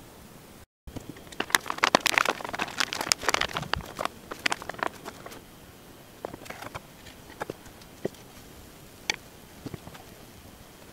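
Pancake batter going into a hot nonstick frying pan, crackling densely for a few seconds, then settling into scattered light pops and ticks as it cooks.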